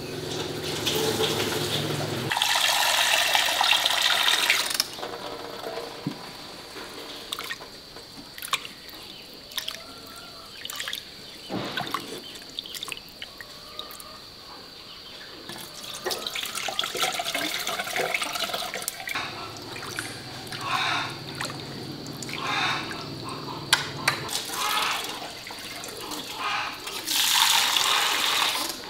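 Water running from a tap into a sink in two loud bursts, one near the start and one near the end, with scattered clicks and knocks of washing-up or food preparation in between. A low steady hum comes and goes.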